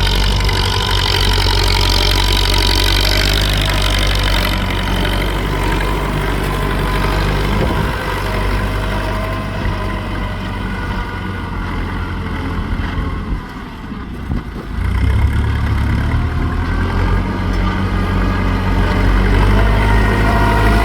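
Ford 6640 tractor's diesel engine running steadily, dropping off briefly about two-thirds of the way through and then picking up again.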